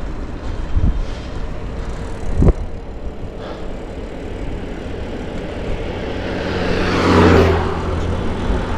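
Steady wind and road noise on the microphone of a road bicycle. A motor vehicle approaches and passes close by, its engine hum and tyre noise loudest about seven seconds in. There is a single sharp click about two and a half seconds in.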